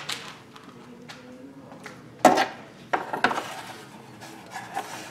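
Knocks, clinks and rubbing of hands handling a new thermostat housing and its bolts in a car's engine bay. The loudest knock comes a couple of seconds in, a cluster follows around three seconds, and two lighter clicks come near the end.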